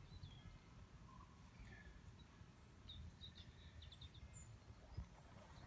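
Faint outdoor ambience: distant songbirds giving short high chirps, with a quick run of notes about three seconds in, over a steady low rumble. A single soft knock about five seconds in.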